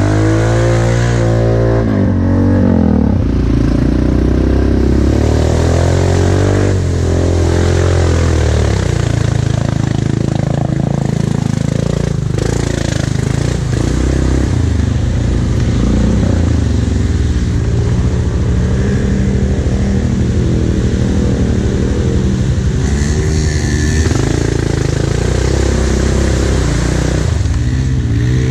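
ATV engine running under way on a muddy trail, its pitch rising and falling as the throttle opens and closes.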